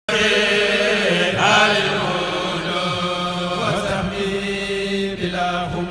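Vocal chanting with long held notes that bend slowly in pitch.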